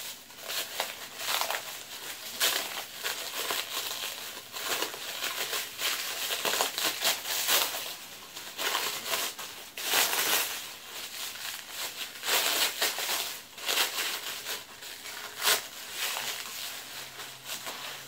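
Thin plastic bag crinkling and rustling in irregular bursts as it is pulled off a BMX seat post.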